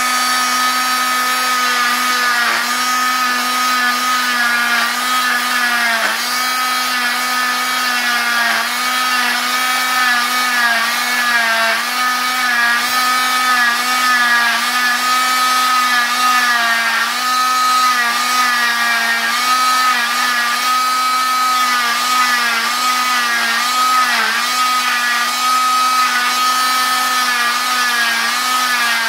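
Oscillating cast saw with vacuum dust extraction, cutting through a fiberglass arm cast. A steady high motor whine that dips briefly in pitch a few times as the blade presses into the cast.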